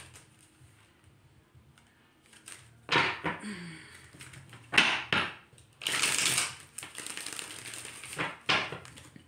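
Tarot deck being shuffled by hand: quiet at first, then from about three seconds in several short bursts of cards rustling and slapping together, with a longer riffle around the middle.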